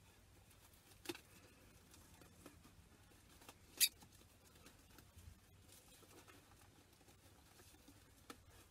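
Quiet hand-handling of a homemade scrap drum's plastic and cardboard parts: faint rustles and light clicks, with one sharp crackle about four seconds in.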